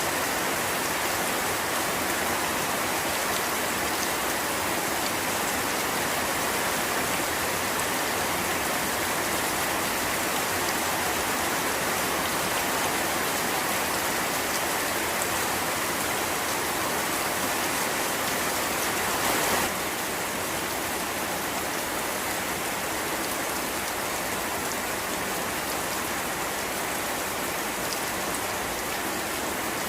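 Steady rain falling, an even continuous hiss. About two-thirds of the way through it swells briefly, then carries on a little quieter.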